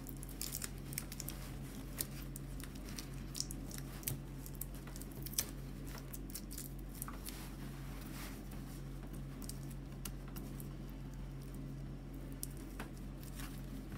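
Light clicks and rustles of fingers picking tape off the end of a stroller canopy's frame rib, over a steady low hum.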